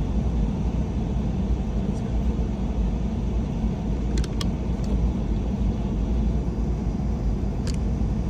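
Steady low rumble, with a few brief sharp clicks about four seconds in and again near the end.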